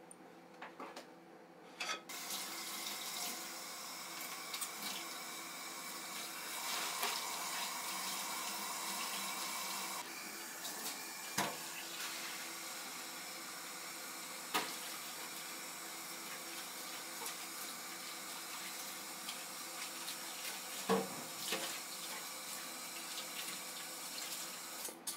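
Steady rush of running water, with a few sharp clicks scattered through it.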